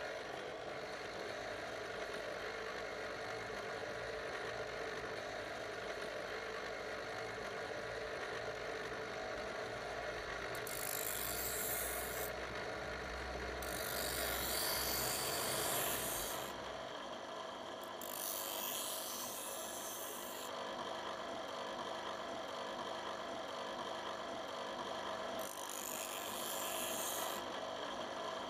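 Bench grinder sharpening a blade: four harsh, high-pitched hissing grinds of about two seconds each, starting about ten seconds in, as metal is pressed to the spinning wheel, over a steady hum.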